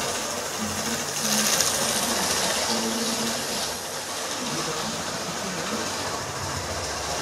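Model train running past on its track: a small electric motor whirring and wheels clattering, loudest a second or two in as it comes close.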